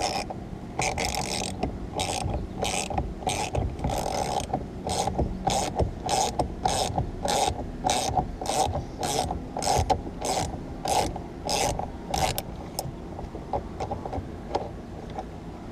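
Ratchet wrench clicking in short back-and-forth strokes, about two a second, as the M12 steering-wheel bolt is backed out after being cracked loose. The clicking stops about three-quarters of the way through.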